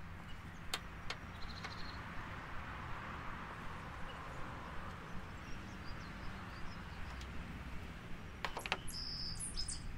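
Faint clicks and light rattling from a plastic wiring connector and a finned voltage regulator being handled by hand. There are a couple of clicks early on and a quick cluster of sharper clicks near the end, over a low steady background hum.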